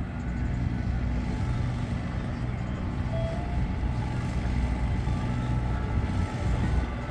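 Street traffic dominated by the steady low rumble of a large vehicle's engine running close to the microphone.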